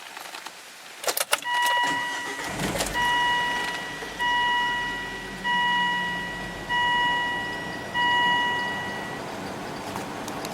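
2001 Volvo V70 T5's turbocharged five-cylinder engine being started: a few clicks, then it starts about two seconds in and settles to a steady idle. A warning chime sounds six times, about every second and a quarter. The engine has misfires that are put down to failing ignition coils.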